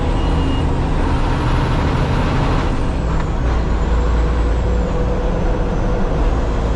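Kenworth T800 dump truck's Cummins X15 diesel engine running under way, a steady drone heard from inside the cab.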